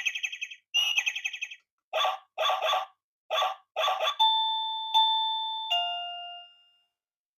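Electronic chime from a ChunHee plug-in dog doorbell receiver playing its ring tones: two quick warbling trills, then four short notes, then three ringing bell tones falling in pitch and fading out.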